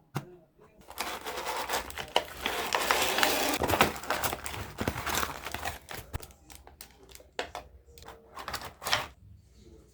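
Packaging being handled and opened, crinkling and rustling. The crinkling is loudest for a few seconds starting about a second in, then eases into lighter handling with scattered clicks and taps.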